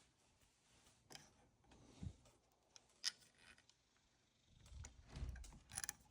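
Faint clicks and taps of small Holley 4160 carburetor parts being handled during reassembly, a few about a second apart, then a soft low handling noise near the end, with near silence between.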